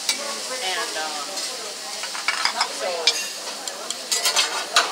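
Food sizzling on a hibachi teppanyaki griddle while the chef's metal utensils clack and scrape against the steel, with a run of sharp clinks in the second half.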